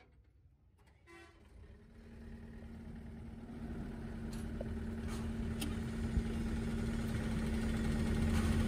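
Wheeled excavator's diesel engine running with a steady hum, which comes in about a second in and grows gradually louder.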